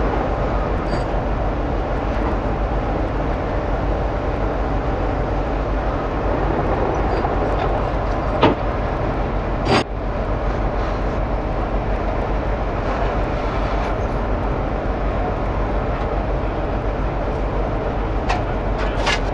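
Heavy truck running, a steady drone of engine and road noise, with two sharp knocks about eight and a half and ten seconds in.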